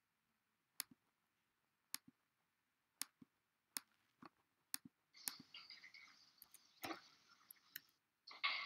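Faint, sharp clicks of computer keys or a mouse, about one a second, then a few seconds of faint breathy hiss.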